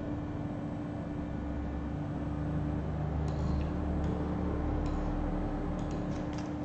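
Room tone: a steady hum holding one constant tone, with a low rumble that swells in the middle and a few faint clicks near the end.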